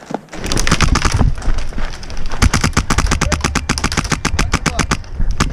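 Airsoft rifle firing on full auto: long strings of sharp, rapid shots at about ten a second, with a thinner patch of shots between two strings about two seconds in.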